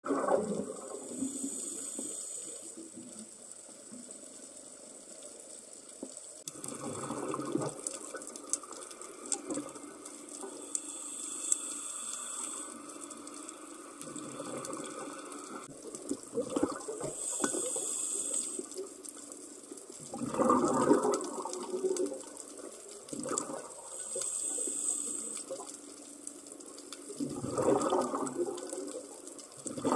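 Scuba diver breathing through a regulator underwater: a hissing inhale every six or seven seconds, each followed by a rush of exhaled bubbles.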